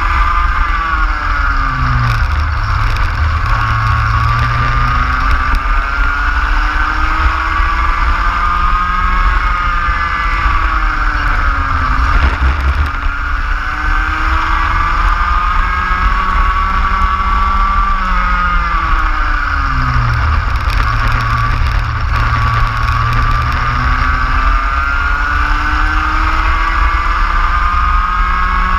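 Racing kart engine heard from on board at full race pace. The revs climb steadily along the straights and drop sharply into the corners, three times over.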